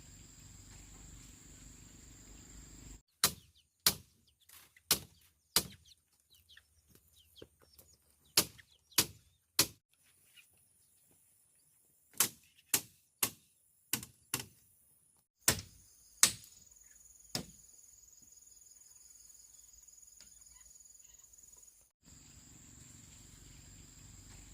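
Sharp chopping blows of a blade into bamboo, in short runs of a few strokes about half a second apart, each one loud and sudden. Before and after the chopping a steady insect drone with a high whine carries on.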